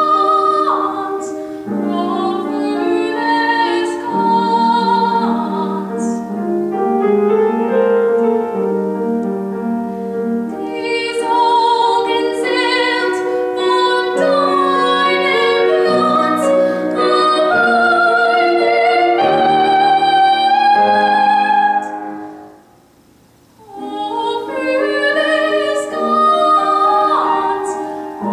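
A young woman singing a classical song in trained operatic style with vibrato, accompanied by piano chords. Near the end, voice and piano stop together for about a second, then resume.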